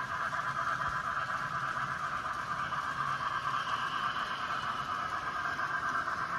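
N-scale model trains running on the layout: a steady running noise with a faint low hum underneath.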